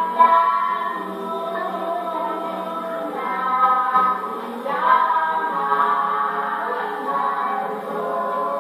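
Choir singing, several voices together in harmony.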